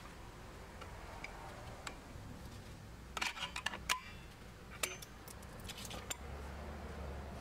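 Small metallic clicks and ticks as pliers grip and twist a drum brake shoe's hold-down spring cup and pin to free it. There is a cluster of clicks about three seconds in and a few more near five seconds.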